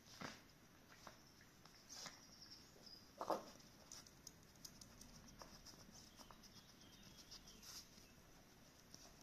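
Shiba Inu puppies nosing and pawing through a fleece snuffle mat: faint scattered rustling and small clicks, with one louder short sound about three seconds in.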